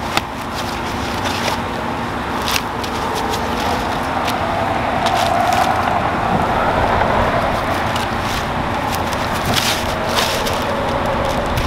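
Plastic bags and packing foam crinkling and rustling as battery packs are unwrapped and lifted out, with scattered sharp crackles, over a steady low hum.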